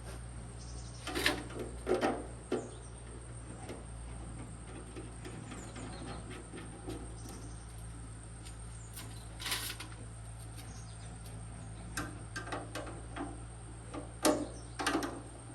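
Scattered light clicks and knocks, as of parts and tools being handled during repair work, over a steady low hum and a thin high whine. A few knocks come in the first three seconds, one around the middle, and several close together near the end.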